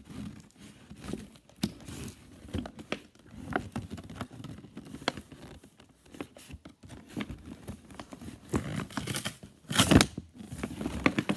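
Cardboard and plastic toy packaging being cut, torn and handled: irregular rustling, crinkling and small clicks, with a louder burst of noise about ten seconds in.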